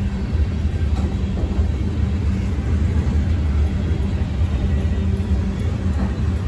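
Freight cars of a long manifest train rolling past at close range: a steady low rumble of steel wheels on rail, with a faint steady hum running through it.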